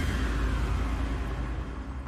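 Game-show sound effect: a heavy low rumble with a falling whoosh above it, fading gradually. It marks the chosen drop zone lighting up for the counter's drop.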